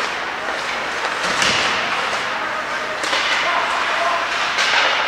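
Ice hockey play in an indoor rink: three sharp knocks of sticks, puck or boards, about one and a half seconds apart, over the murmur of spectators talking.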